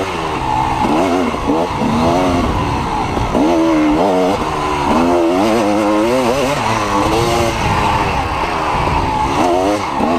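Dirt bike engine running hard, its pitch rising and falling over and over as the throttle is opened and closed.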